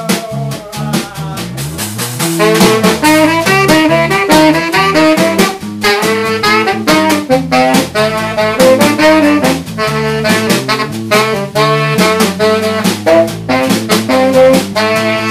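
A live band playing: an electric bass and a drum kit, with a lead melody line over them that comes in louder about two seconds in.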